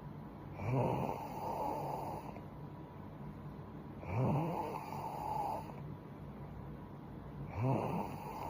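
A girl snoring in her sleep: three snores about three and a half seconds apart, each beginning with a loud low rasp and trailing on for a second or two.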